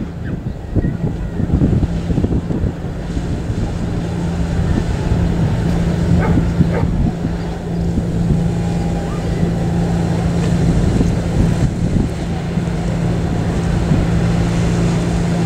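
Fireboat's engines running steadily as it cruises past on the river, a low hum that grows slightly louder, with wind rumbling on the microphone.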